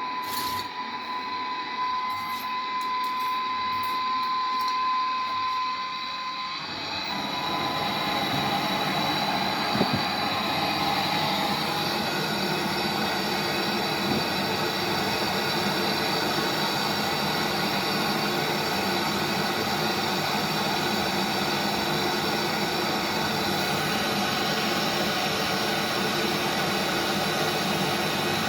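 A steady high whine for about the first six seconds, then the steady hiss of a brazing torch flame as the new filter-drier is brazed into the refrigerant line.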